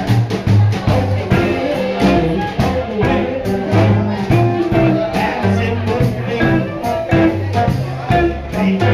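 Live swing band playing a jazz tune with a steady beat, a plucked bass line and guitar.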